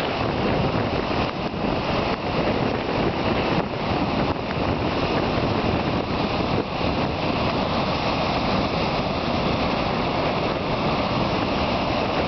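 Niagara Falls: a steady, dense rush of water pouring over the falls, with no break or change.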